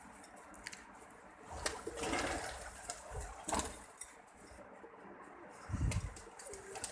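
Pigeons cooing: low, short bending coos, with scattered sharp clicks and a brief rustle about two seconds in.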